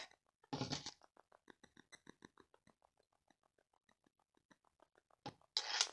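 Quiet handling of a soft tape measure and crocheted fabric on a table, with a brief rustle about half a second in and another near the end. In between there is a faint, rapid, even pulsing that fades out over a few seconds.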